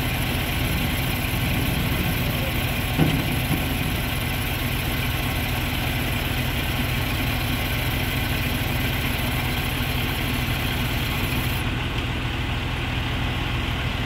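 Crane truck's engine idling steadily while the truck-mounted crane lifts a load, with a single short knock about three seconds in.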